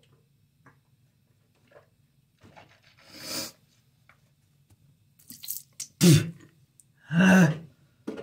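A young man coughing, his mouth burning from an extremely hot chip. A breathy exhale comes about three seconds in, then a sudden loud cough about six seconds in and a longer, voiced cough about a second later.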